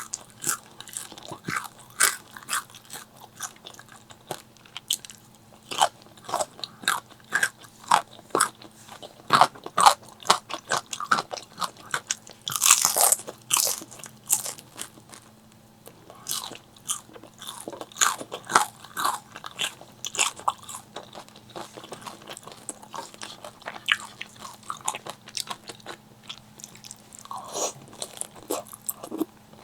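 Close-miked eating: crisp crunching bites and chewing of crispy fried chicken, a steady run of sharp crackles with a louder crunching stretch about 13 seconds in.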